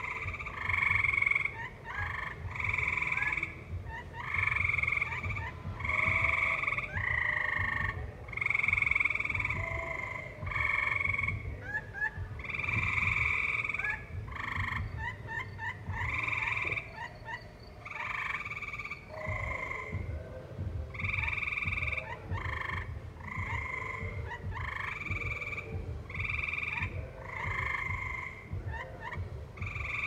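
A chorus of tree frogs calling. Many calls overlap and repeat without a break, each lasting about half a second to a second.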